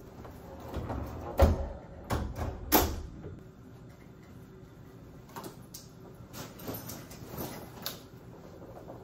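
Heavy hotel room door on an overhead closer opening and swinging shut, with sharp knocks about a second and a half in and again near three seconds. Lighter clicks and rattles of luggage being handled follow.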